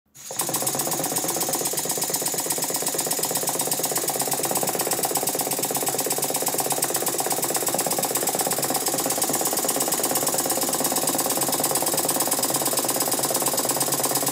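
Small horizontal brass model steam engine with a heavy-rimmed flywheel running steadily: a fast, even beat of exhaust and motion over a high hiss.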